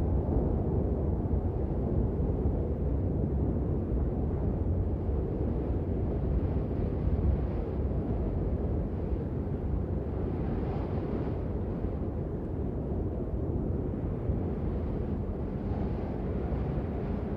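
Steady low rumbling outdoor snowfall ambience, with a fainter hiss that swells briefly about two-thirds of the way through.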